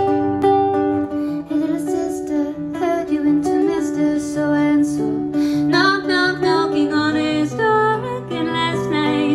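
Solo acoustic guitar picked in a slow, gentle pattern, with a woman's singing voice joining it about six seconds in.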